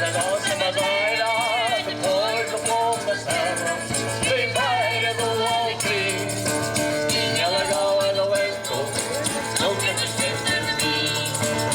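Music: a wavering melody over a steady low drone, continuous and fairly loud.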